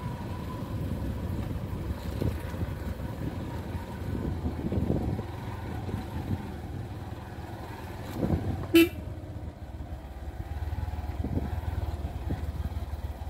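Small motorcycle riding along a rough dirt trail: a low engine and wind rumble throughout, with one short, sharp beep of the horn about nine seconds in.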